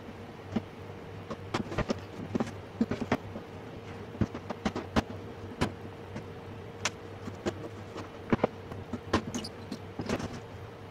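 Irregular knocks and clatter of a Samsung LED TV's plastic frame being shifted and turned on a wooden workbench, over a steady low hum.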